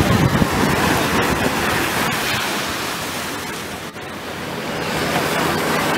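Ocean surf breaking and washing up the beach: a steady rushing noise that dips briefly about four seconds in.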